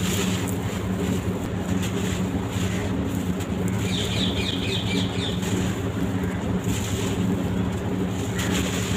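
Gritty crunching and crumbling of dry sand-cement block, a continuous fine crackle over a steady low hum. About four seconds in comes a short burst of rapid high chirps.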